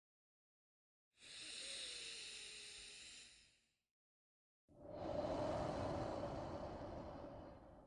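A person taking a slow deep breath: a long hissing inhale starting about a second in, a pause of about a second, then a longer, fuller exhale.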